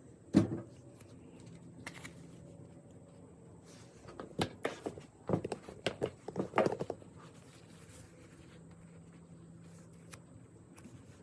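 Hand tools and small parts being handled on a work surface: one sharp knock about half a second in, then an irregular run of taps and clicks between about four and seven seconds.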